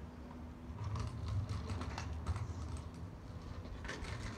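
Kick scooter being pushed and ridden over rough asphalt: a low rolling rumble begins about a second in, with many small clicks and rattles from the wheels and deck.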